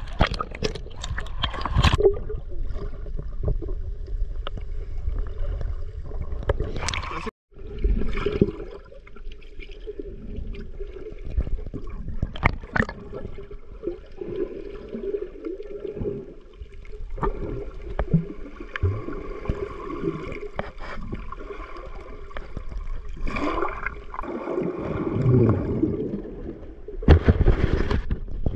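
Water gurgling and sloshing around a handheld action camera as it dips in and out of the sea, heard muffled while under water, with splashes at the surface.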